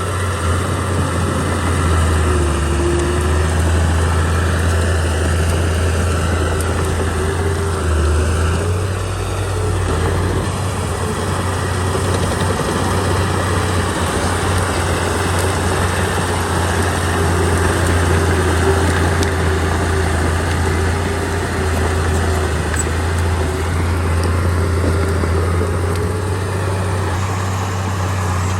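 Heavy diesel engine of a Komatsu D31P crawler bulldozer running steadily under work, with a dip about nine seconds in.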